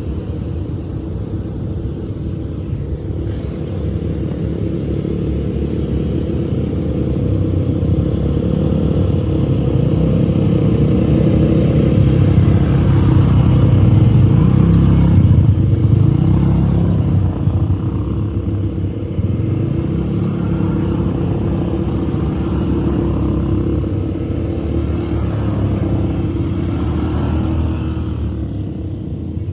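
ATV engine running, its pitch rising and falling with the throttle, and loudest around the middle.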